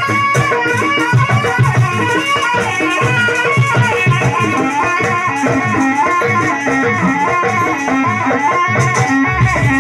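Loud traditional Javanese music for a barongan dance: a melody over steady drum beats, with a continuous rattle running through it.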